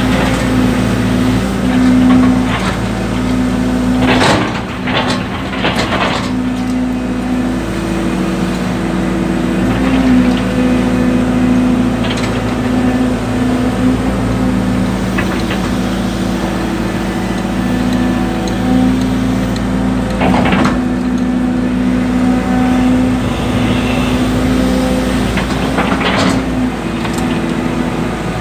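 Excavator diesel engine running steadily, its pitch and load shifting as the machine digs soil, with a few short knocks from the work.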